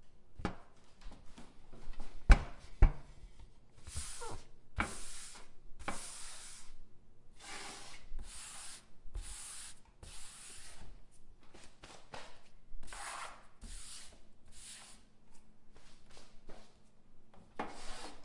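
A cookie sheet being wiped in a series of short rubbing strokes, each lasting about half a second to a second, with brief pauses between them. Two sharp knocks come a little over two seconds in, louder than the strokes.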